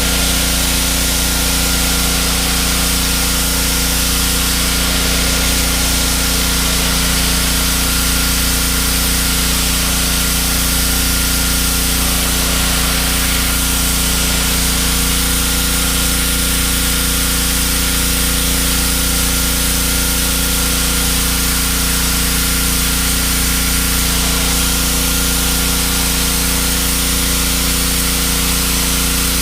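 Pressure washer running steadily, its motor's even hum under the hiss of the high-pressure water jet spraying.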